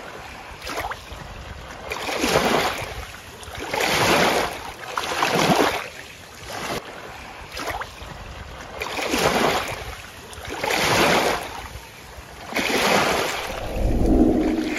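Small waves washing in over a sandy shore, each wash swelling and falling away, one every second or two.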